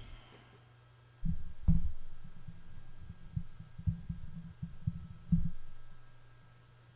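A steady low hum, with a run of irregular low thuds and rumbles from about a second in, fading out after about five seconds.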